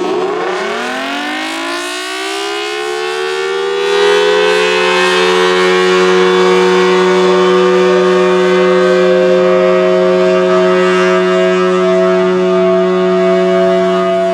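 Federal Signal Thunderbolt 1000T outdoor warning siren winding up over about four seconds to a steady wail, which is then held. A steady low hum sounds underneath and drops away with a falling pitch near the end. The uploader says this unit is wired in reverse and that its blower is not in the best condition.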